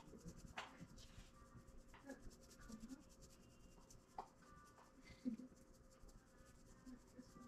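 Very faint rubbing and scratching of hands spreading a dry seasoning blend over oiled fish fillets, with a few small clicks.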